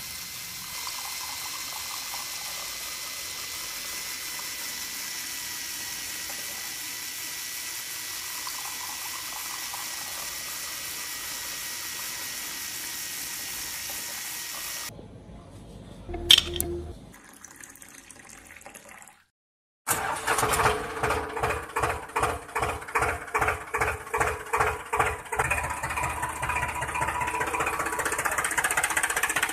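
A small electric mini water pump running with a steady hiss of water for about fifteen seconds. After a sharp click and a moment of silence, a small electric motor and plastic gears of a toy tractor run with a rhythmic pulsing, about two pulses a second, growing steadier near the end.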